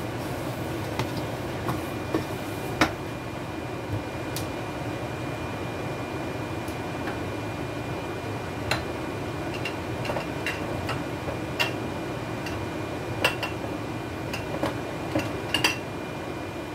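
A utensil clicking and tapping against a cooking pot now and then, irregularly, while sugar is stirred as it melts, over a steady background hum.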